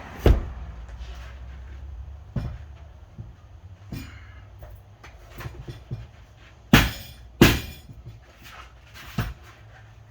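A series of sharp metal-on-metal knocks and clicks, about six in all, with the two loudest close together a little past the middle, from tools and parts being worked against a manual transmission case to seat a clip.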